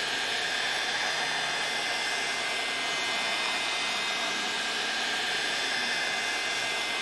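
A 1,500-watt Mastercraft heat gun running steadily, its fan blowing a constant rush of hot air with a faint high whine from the motor.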